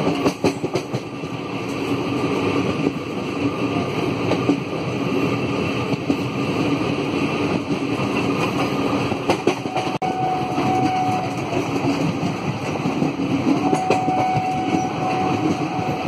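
Running noise of a moving train heard from aboard: a steady rumble with the wheels clicking over rail joints now and then. A thin, faint whine comes and goes twice in the second half.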